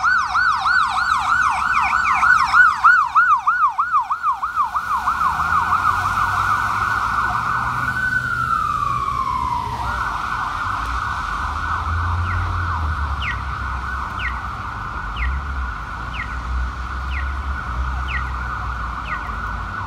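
Emergency vehicle sirens from a responding fire engine and ambulance. A fast yelp cycling several times a second gives way to a steady high wail, which glides down in pitch near the middle and then jumps back up. Short falling chirps about once a second and a low engine rumble run through the second half.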